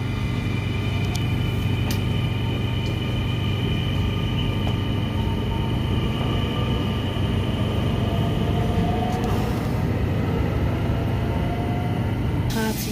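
NS electric Sprinter trains moving through the station below: a steady rumble with a constant electric hum and a high whine from the traction equipment. There are a few light clicks.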